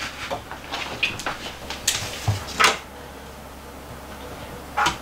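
Wooden knocks and bumps of an upper kitchen cabinet being handled and pushed up into place, several sharp knocks in the first three seconds and one more near the end.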